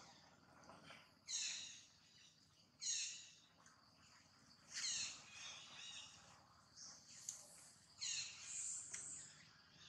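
Infant long-tailed macaque crying in a series of short, high-pitched squeals, about half a dozen, each falling in pitch: distress cries of a frightened baby monkey.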